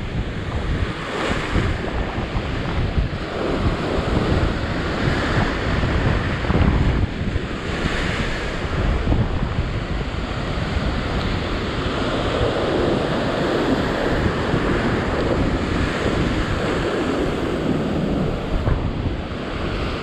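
Heavy ocean surf breaking and washing over a rock ledge in repeated surges, with strong wind buffeting the microphone.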